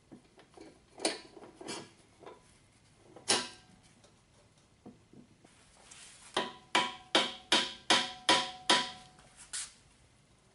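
Steel rear axle of a Honda CX500 being hammered through the swing arm and final drive: a few loose knocks, then a run of about eight quick, ringing metal taps. The axle is binding in its bore, which the owner puts down to powder coating narrowing the passage.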